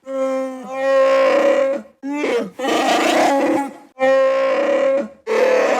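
Chewbacca's Wookiee vocalizations: a run of about five separate roaring calls, some bending in pitch, with short pauses between them.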